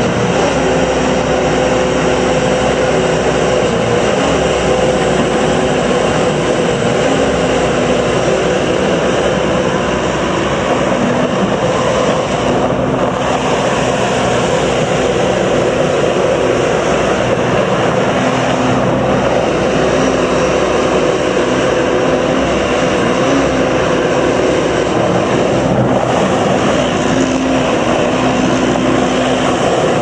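Bobcat S595 skid steer loader's 74 HP Doosan diesel running steadily with an even hum while the machine works its loader arms and drives.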